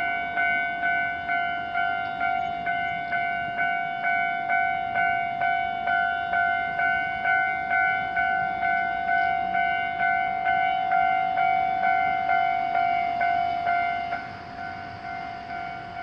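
Japanese level-crossing warning bell, an electronic ding-ding repeating about twice a second over a steady ringing tone. About fourteen seconds in it drops to a noticeably lower volume and keeps sounding.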